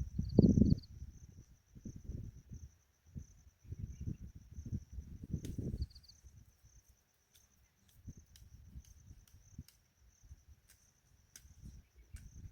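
A cricket trilling steadily in a fast pulsing high tone, with low rumbling bursts of noise, loudest just after the start and again a few seconds in, and scattered light clicks in the second half.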